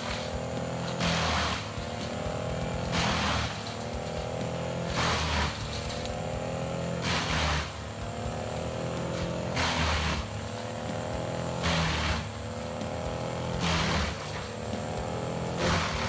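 Industrial wood chipper running under load: a steady heavy engine drone with a burst of grinding, chipping noise roughly every two seconds as wood goes through.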